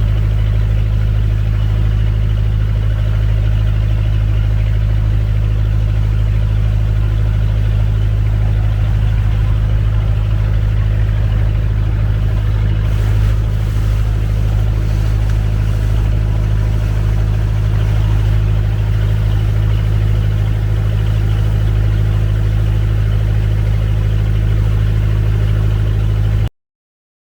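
Engine running steadily at an even speed, a loud low hum, cutting off abruptly near the end.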